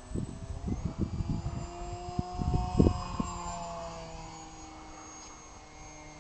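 Radio-controlled P-51D Mustang model plane in flight: its motor and propeller give a steady whine that rises in pitch, peaks about halfway through, then sinks and fades as it flies away. Wind buffets the microphone in the first half, loudest about three seconds in.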